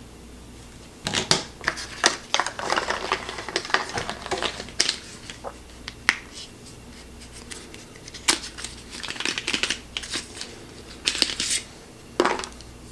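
Small parts and packaging being handled: irregular clicks, taps and short rustles as screwdriver bit attachments and their small boxes are taken out and set down.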